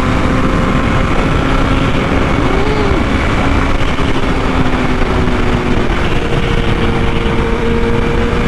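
Heavy wind rush over the microphone with a BMW S1000RR's inline-four engine running at a steady pitch while cruising.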